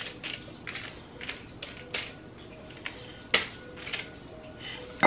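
Quiet kitchen handling at the counter: a scatter of light taps and clicks from food and utensils being moved about, a few every second, one a little louder about three and a half seconds in.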